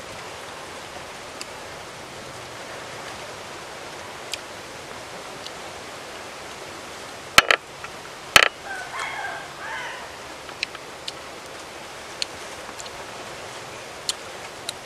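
Green tamarind pods being snapped and handled: two sharp snaps about a second apart near the middle, with a few faint clicks, over a steady outdoor hiss.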